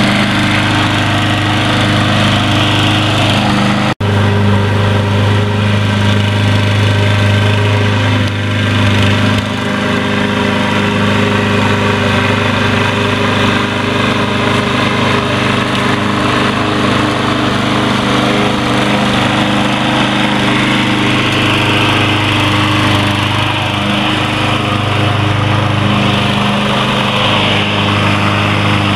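Troy-Bilt TB230 self-propelled walk-behind gas lawn mower running steadily under load while mowing grass, with an instant's dropout about four seconds in.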